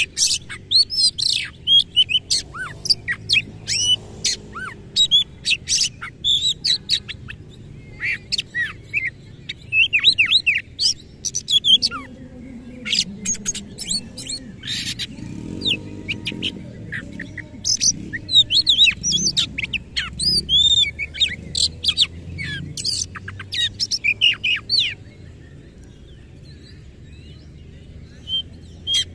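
Oriental magpie-robin singing loudly: a rapid, unbroken run of whistles, sharp chips and rough mimicked phrases. It falls silent for a few seconds near the end, then starts again.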